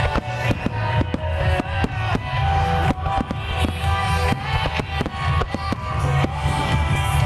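Wide star mine fireworks bursting in quick, irregular succession, many sharp bangs, over loud music played for the display.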